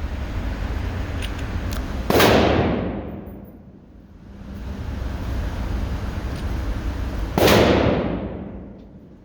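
Two handgun shots about five seconds apart, each a sharp crack with a fading ring, over a steady rushing background. The shots are likely from a .40-calibre pistol.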